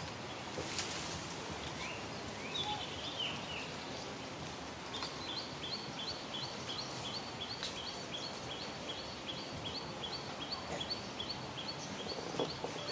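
A small bird calling over steady outdoor background noise: a few slurred chirps, then from about five seconds in a long, even series of short, high notes repeated about two to three times a second.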